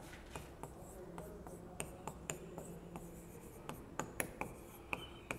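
Writing on a classroom board: faint, irregular taps and short scratches of the writing tool as words are written, with a faint squeak near the end.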